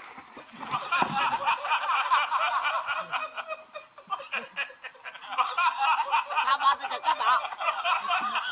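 High-pitched, rapid laughter in quick repeated pulses. It breaks off about three seconds in and starts again about a second later.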